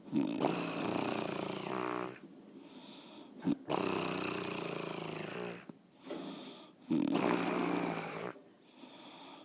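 A young woman snoring in her sleep: three long, loud snores about three seconds apart, with quieter breathing between them and a short, sharp sound about three and a half seconds in.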